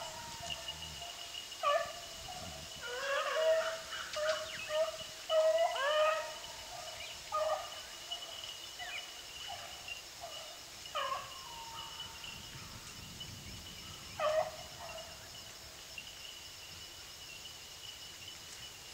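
Beagle pack baying on a running trail: short, ragged calls that rise and fall in pitch, coming in irregular bunches and thinning out after about two thirds of the way through.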